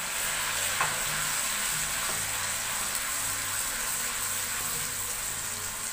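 Tomato puree frying in hot oil in a steel kadhai with browned ginger-garlic paste: a steady sizzling hiss.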